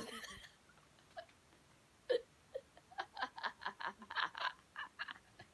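A sharp knock with a brief rustle at the very start, then, from about two seconds in, a run of short, quick bursts of a person giggling under their breath.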